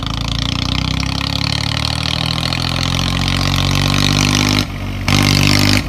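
An engine running with a steady low hum. About four and a half seconds in it dips for half a second, then comes back louder.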